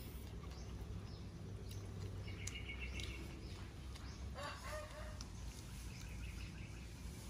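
Faint calls of domestic fowl in the yard: a short run of calls about two and a half seconds in and another brief call about four and a half seconds in, over low, steady background noise.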